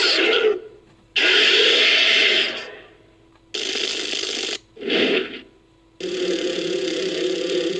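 Designed monster sound effect for a giant praying mantis, made from Preytor and female MUTO creature calls: a series of five harsh, hissing screeches, each from half a second to about two seconds long. The first two are the loudest and the last is still going at the end.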